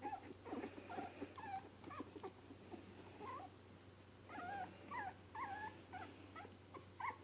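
Three-week-old puppies whimpering faintly: many short, high squeaky calls that bend in pitch, coming thicker in the second half.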